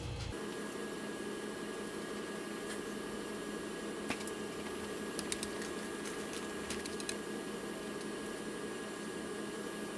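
Steady mechanical hum, with a few faint clicks and rustles as the wire-stemmed branches of a small artificial Christmas tree are bent outward.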